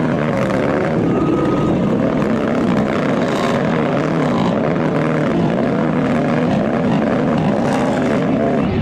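Lifted mud ATV's engine running hard at high revs, its pitch wavering up and down as the oversized tyres spin and churn through deep mud.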